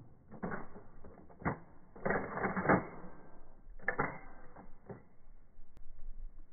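Mosin-Nagant bolt-action rifles being cycled after a volley: irregular clusters of metallic clacks and scrapes as the bolts are worked open and shut, spread over several seconds.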